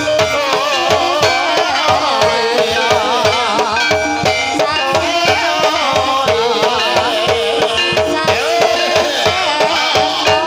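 Javanese ebeg (kuda kepang) gamelan music: hand drums keep a quick, even beat of about three to four strokes a second under ringing metallophones and a wavering melody line.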